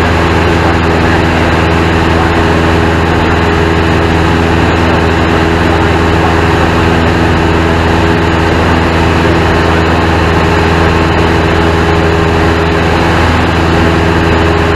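Single-engine light airplane's piston engine and propeller running steadily in flight, heard from inside the cockpit as a constant low drone with no change in power.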